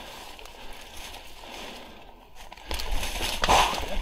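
Footsteps on a dry, leaf-strewn path and leaves and stems brushing against clothing and gear as a person pushes through tall brush. The rustling grows louder in the last second or so.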